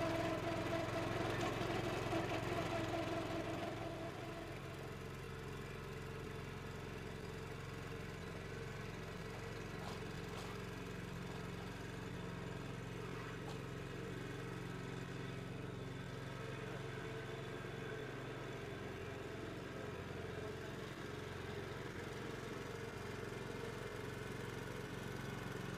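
Walk-behind trencher's engine running steadily, louder for the first few seconds and then settling to a lower, even level about four seconds in.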